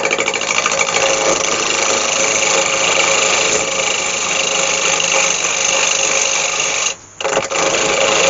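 A turning gouge cutting into a spinning wood blank on a lathe, roughing its corners down to round: a loud, continuous scraping hiss of the cut over the steady hum of the lathe. The cut breaks off twice in quick succession about seven seconds in, then carries on.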